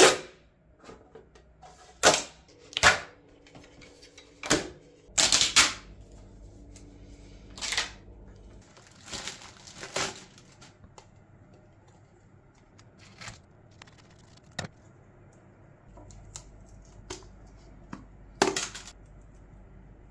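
Handling sounds of hard plastic parts and a vacuum-cleaner HEPA filter on a countertop: scattered sharp clicks and knocks, with a plastic wrapper crinkling for a second or two near the middle.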